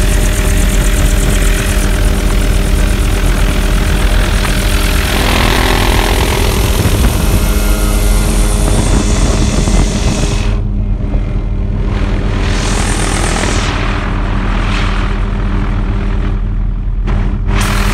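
Helicopter engine and rotor running steadily, heard from inside the aircraft, loud with a constant drone. From about ten seconds in the high hiss fades in and out, so the sound turns duller by turns.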